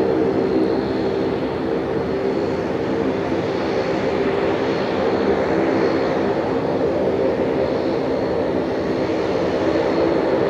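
Fokker 100 jet airliner on final approach, its Rolls-Royce Tay turbofans giving a steady drone with a thin high whine.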